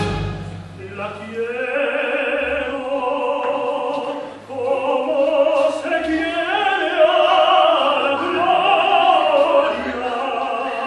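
A man singing in operatic style with a wide vibrato. He begins about a second in, breaks briefly about four seconds in, then sings louder.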